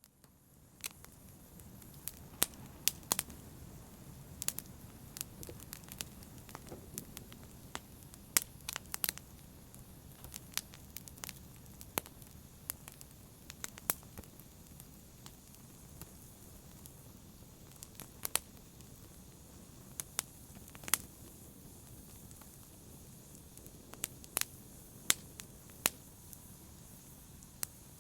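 Wood fire burning in a fireplace, crackling, with irregular sharp pops and snaps over a steady low rush of flame.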